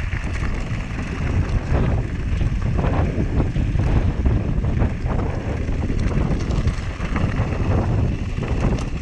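Wind buffeting an action camera's microphone, with a Whyte G-170 mountain bike's tyres crunching over loose gravel and the bike rattling with many irregular small clicks as it rolls downhill.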